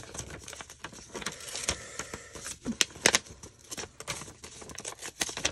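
A sheet of printed paper being torn by hand, slowly and irregularly: a run of small crackles and rasps with a few sharper snaps about three seconds in.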